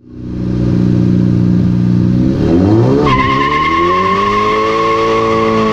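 Car engine running, then revving up about two and a half seconds in and holding at higher revs, with a steady high squeal joining at about three seconds.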